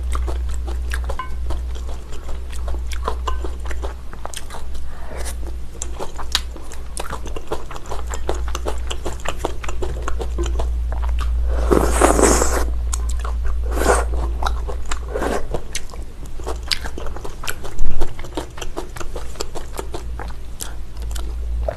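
Close-miked eating: a metal spoon and chopsticks scraping and clicking on a ceramic plate, with chewing and mouth sounds of chewy rice cakes and glass noodles in sauce. A louder burst of noise comes about halfway through, and one sharp loud knock about three-quarters of the way in, over a steady low hum.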